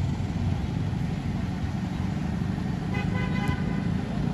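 A vehicle horn gives one short toot about three seconds in, over a steady low rumble.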